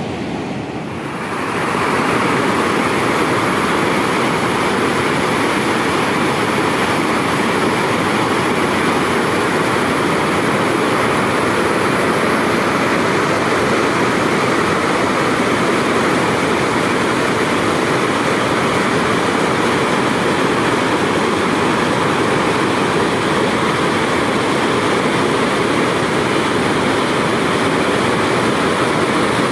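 Water rushing over a dam's waterfall: a steady, even noise that becomes louder about a second and a half in and then holds without change.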